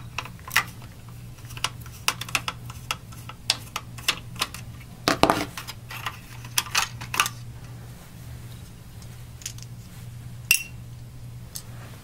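Sharp plastic clicks and snaps as the disc-door release button assembly is unclipped and pulled out of a Sony PlayStation 1's plastic top case. The clicks come thick and fast for the first seven seconds, with a louder clatter about five seconds in, then only a few scattered clicks.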